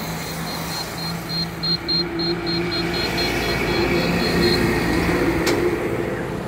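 A heavy goods truck passing close on a highway, its engine drone and tyre noise swelling as it goes by, loudest about four to five seconds in. A faint, high chirping pulses about four times a second through the first four seconds, and there is one short click near the end.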